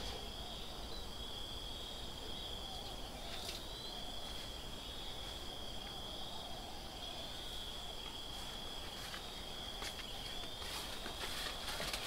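A steady, high-pitched insect chorus trilling without a break, over a low rumble of background noise.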